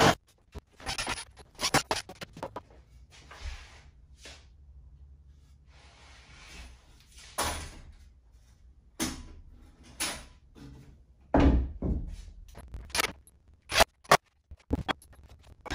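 Scattered wooden knocks and thumps, with a few soft scrapes, from a 2x4 lumber frame being handled and shifted. The loudest, deepest thump comes about three-quarters of the way through.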